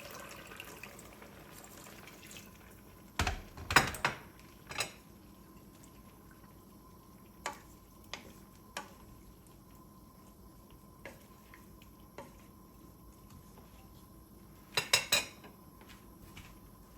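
Cookware and utensils clinking and knocking in scattered sharp strikes over a faint steady background, with a cluster of louder knocks about three to four seconds in and another near the end.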